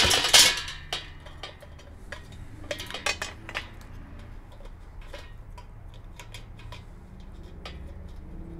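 Metal parts of a folding workbench frame clinking and clattering as they are handled and fitted together: a loud clatter right at the start, then scattered light clicks and knocks.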